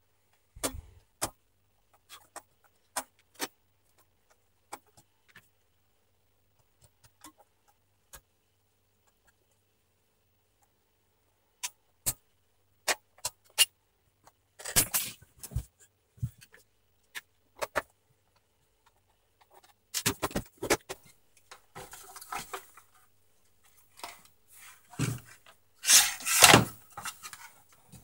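Plastic clicks, knocks and scraping as the tight-fitting plastic top cover of a Scarlett SC-1081 vacuum cleaner is pried off its base with a screwdriver. Scattered single clicks come first, then longer spells of scraping and rattling in the second half, the loudest near the end.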